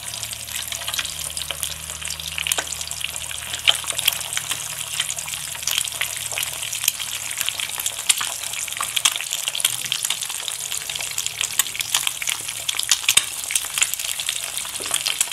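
Eggs frying in ghee in a pan, sizzling steadily with many small crackles, while a spoon stirs and breaks up the yolks in the pan.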